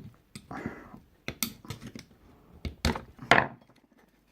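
Plastic BBS wheel centre cap being worked apart by hand. A string of sharp clicks and short scrapes sound as the ring is pushed against its retaining tabs.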